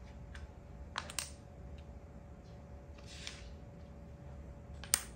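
Makruk (Thai chess) pieces being moved by hand on the board: a pair of light clicks about a second in, a short soft rustle around three seconds in, and a sharp click near the end as a piece is set down.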